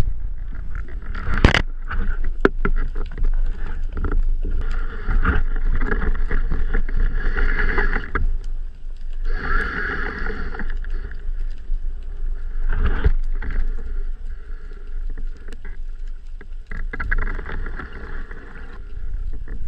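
Underwater sound picked up by a freediving spearfisher's camera: a steady low rumble with crackling clicks and several sharp knocks, the loudest about a second and a half in, and a humming whine that swells twice near the middle.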